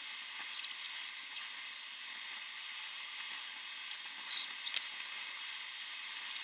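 Quiet room tone: a steady faint hiss with a few faint high tones, broken by brief small squeaks and taps about half a second in and again around four and a half seconds in.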